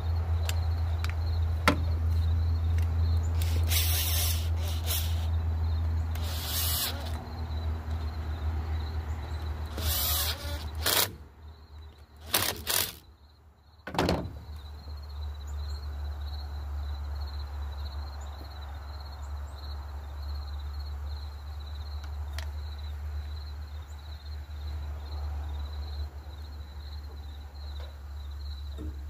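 Hands fitting a carburetor and its plastic air-filter housing onto a small cultivator engine: scattered clicks, plastic clunks and short rustles, over a steady low hum and a thin steady high insect trill.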